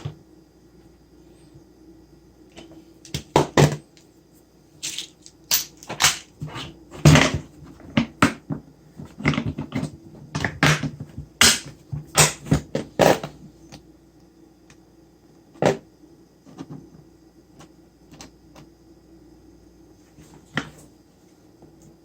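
A run of irregular knocks and clatters lasting about ten seconds, then two single knocks later on, over a faint steady hum.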